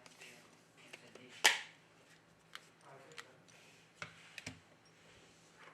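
Small sharp clicks and taps of smartphone parts and tools being handled and fitted during reassembly. The loudest click comes about one and a half seconds in, with a few quieter ones later.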